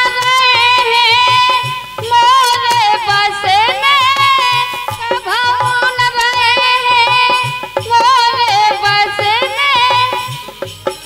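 A woman singing a Bundeli folk song in long, wavering held notes, accompanied by harmonium and a steady beat of drum strokes.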